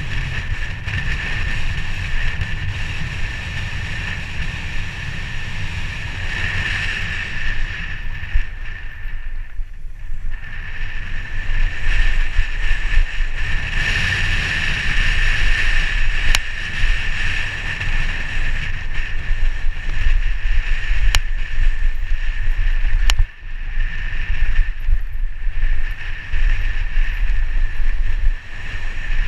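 Wind buffeting a helmet-mounted camera during a fast mountain-bike descent, with tyre rumble and a steady high buzz. A few sharp clicks stand out in the second half, and the noise drops out briefly twice near the end.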